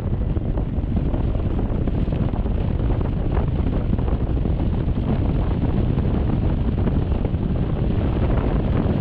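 Steady wind buffeting over the camera microphone of a rider on a Honda Forza 350 scooter moving at road speed.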